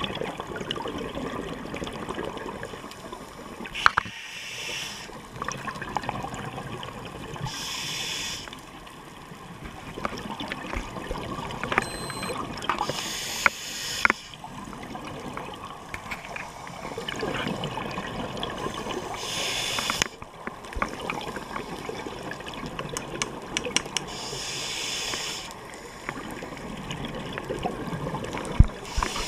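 Scuba diver breathing through a regulator underwater: a high hiss on each inhale, about every five seconds, with bursts of exhaust bubbles between them over a steady rush of water noise. Scattered small clicks.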